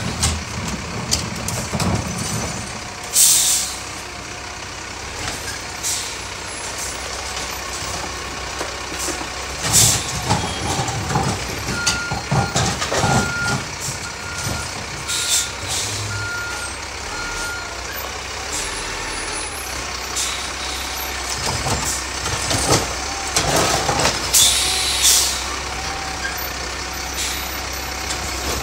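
Diesel garbage truck running, with several short air-brake hisses and, midway, a reversing beeper sounding a run of evenly spaced beeps.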